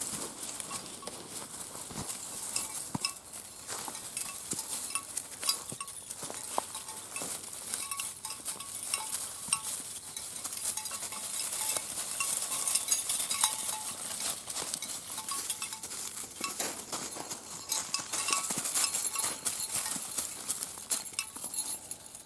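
Footsteps crunching over frozen snow and ice, with light metallic jingling.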